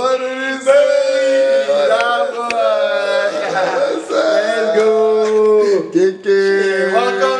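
A man singing long held notes, with other pitches sounding under the voice as in a song.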